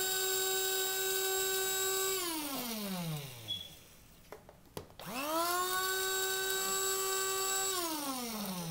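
Electric coffee grinder grinding pan-toasted whole spices to powder, run in two pulses. The motor whirs at a steady pitch and spins down in falling pitch about two seconds in. A click comes in the short pause, then the grinder spins up again about five seconds in and spins down near the end.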